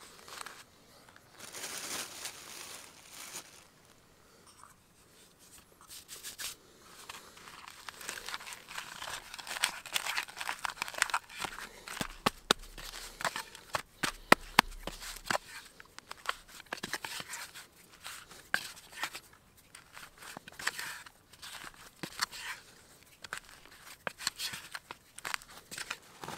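Bread dough being kneaded by hand in a small bowl: sticky squishing and tearing of the dough, with many quick clicks as the fingers press and pull it. The clicks come thickest and loudest in the middle.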